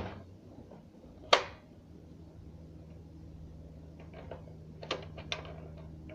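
Handling of a plastic toy gun: one sharp click about a second in, then a few faint light clicks near the end, over a low steady hum.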